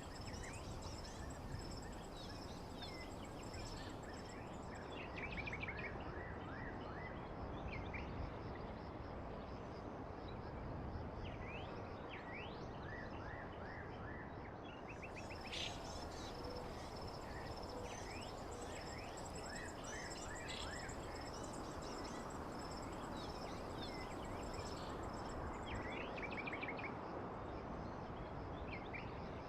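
Nature ambience: small birds chirping in short calls over a steady high insect trill and a constant background hiss.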